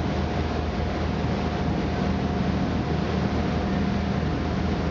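Passenger boat's engine running steadily under way: a constant low drone with a thin steady whine above it, over an even hiss of water and wind.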